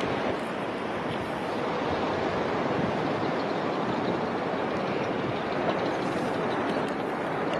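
Steady rushing noise of surf breaking at the shore, with no distinct events.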